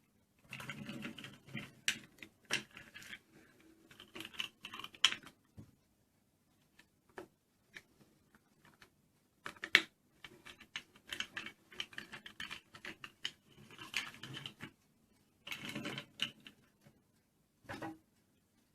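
Irregular clicks, taps and rattles from plastic toy parts being handled, in uneven clusters with short pauses between them.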